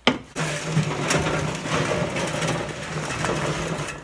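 The 10 HP Tecumseh single-cylinder engine of a snowblower running steadily with a constant low hum, then stopping abruptly at the end.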